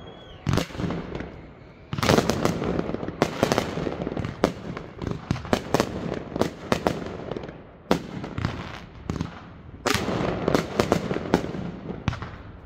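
Aerial fireworks bursting in quick succession: volleys of sharp bangs, densest from about two seconds in and again from about ten seconds in, with a few scattered reports in between.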